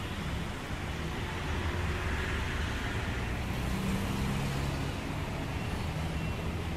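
Steady low rumble of road traffic and running vehicle engines, heard from inside a stopped car.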